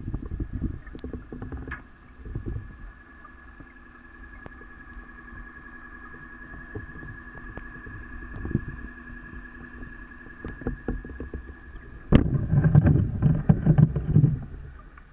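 Underwater recording of a scuba diver's exhaled bubbles rumbling out of the regulator, in bursts at the start and again for about two seconds near the end. Between the breaths, a steady high motor whine, typical of a diver propulsion scooter running.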